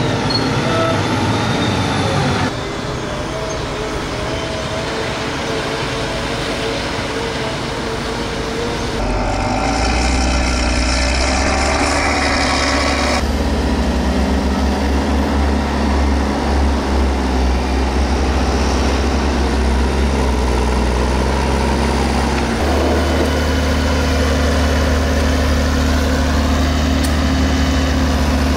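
Large farm tractors' diesel engines working on a silage clamp, a steady low drone. The sound changes abruptly several times where the footage cuts from one tractor to another.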